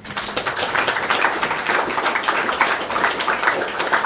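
Audience applauding: many hands clapping together in a dense, even patter that starts suddenly.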